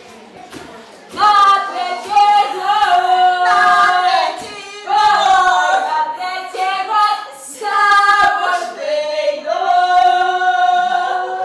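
A group of voices singing unaccompanied, in phrases of long held notes, starting about a second in.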